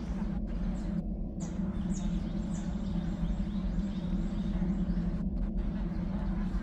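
Outdoor ambience: a steady low hum of background noise, with small birds chirping now and then.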